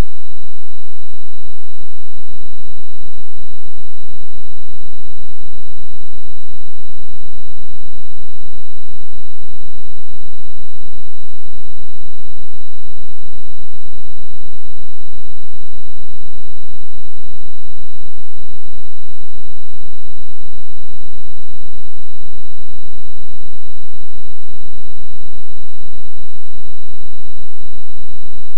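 A loud, steady, high-pitched electronic tone over a harsh, distorted buzz, broken by brief dropouts: a signal fault in the recorded audio, not the sound of the storm.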